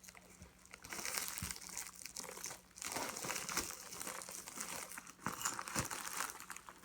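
Packaging crinkling and tearing as a parcel holding a VHS tape is unwrapped by hand, in irregular crackling handfuls with a short pause partway through.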